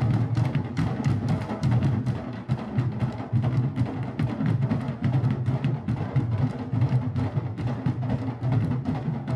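Candombe drums (chico, repique and piano) played together with hand and stick, a dense, steady rhythm of many strokes a second with deep drum tones underneath.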